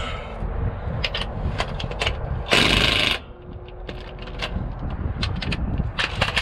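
Tools working on the drive shaft's bolts: scattered metallic clicks and knocks, with one loud harsh burst of well under a second about halfway through.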